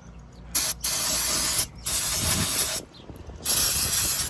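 Aerosol spray can sprayed in three bursts of about a second each, a hiss that starts and stops sharply, as cleaner goes onto oily parts before they are wiped down.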